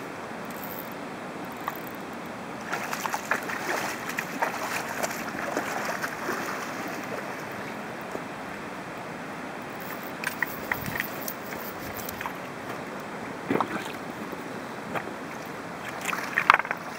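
Steady rush of a fast-flowing river, with irregular splashes of water from about three seconds in and sharp splashes again in the second half, as a hooked steelhead is played into the shallows.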